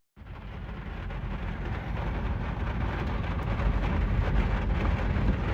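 Steady noise of a thunderstorm's wind and rain around a truck. It starts suddenly and grows gradually louder.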